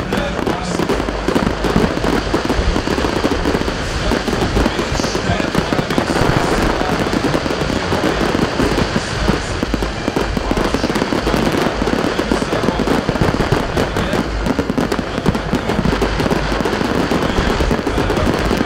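Fireworks display: aerial shells bursting in a rapid, unbroken barrage of bangs and crackles.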